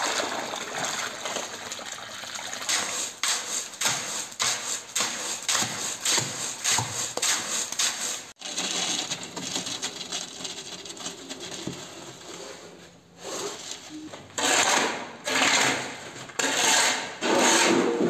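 Hand-mixing mortar with a shovel: repeated scraping strokes of the blade in a steel wheelbarrow as water is poured into the mix. A quieter stretch of tile setting follows, then loud shovel scrapes through sand on a concrete floor near the end.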